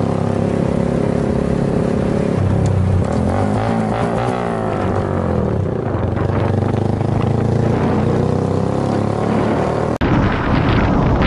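Motorcycle engine heard from the rider's helmet camera while riding in traffic, its pitch rising and falling a few times in the middle as the throttle is worked. About ten seconds in it gives way to wind rushing over the microphone.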